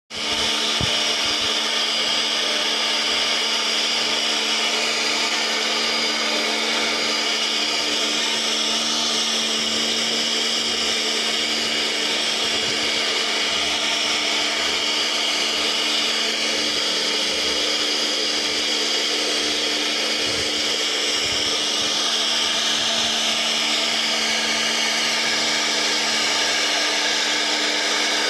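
CNC router spindle running and cutting, a steady whine held at one pitch over a constant cutting hiss.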